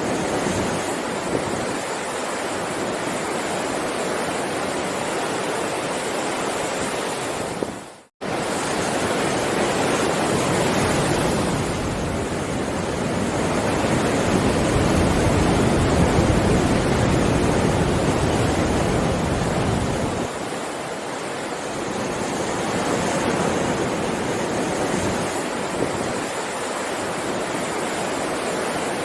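Heavy ocean surf: a continuous wash of breaking waves that swells louder in the middle. About eight seconds in, the sound drops out to near silence for a moment, then resumes.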